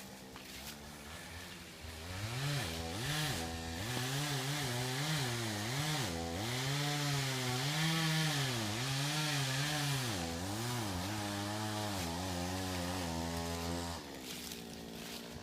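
Small engine idling, then revved up and down over and over for about twelve seconds, then settling back to idle.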